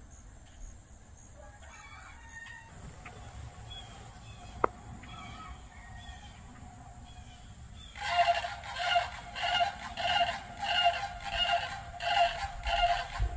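Faint short bird chirps, then about two-thirds of the way in a sudden, much louder run of fowl calls, repeated evenly about two times a second.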